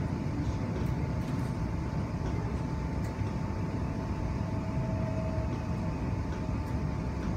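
Steady running noise heard from inside a 4000-class electric train: a continuous low rumble of wheels on rail, with a constant mid-pitched tone over it.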